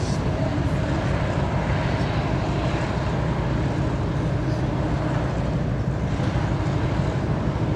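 Steady low rumble of the ferry MV Pont Aven's machinery, even and unbroken.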